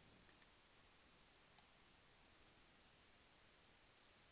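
Near silence: room tone with a few faint clicks from working a computer, two close together just after the start and a couple more around two and a half seconds in.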